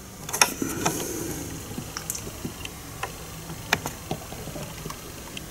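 Light clicks and taps of hands handling a bicycle handlebar bag on its handlebar mount. A brief rustle and cluster of clicks comes about half a second in, then scattered single ticks.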